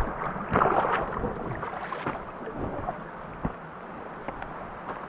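Water splashing and sloshing, louder in the first second, then a steadier wash of moving water with a few small knocks, and wind buffeting the microphone.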